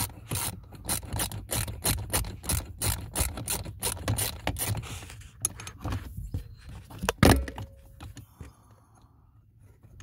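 Ratchet clicking in quick, even strokes, about three or four clicks a second, as the last 7 mm bolt of the HVAC blend door actuator is backed out. The clicks thin out and stop about five seconds in, and one loud knock follows about seven seconds in.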